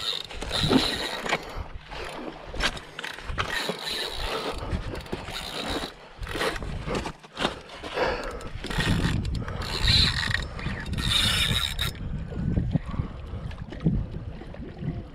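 Shimano Saragosa SW10000 spinning reel working under load while a hooked fish is fought, a quick mechanical clicking and whirring that stops about twelve seconds in. Footsteps on loose shoreline rocks are mixed in.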